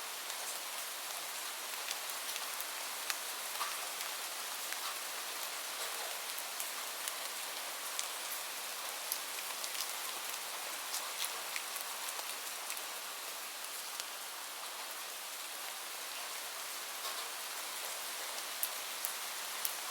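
Steady rain: an even hiss of falling rain with many single drops ticking sharply on a surface.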